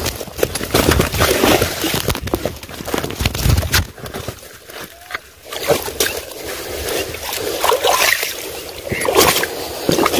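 Water splashing and sloshing in irregular surges.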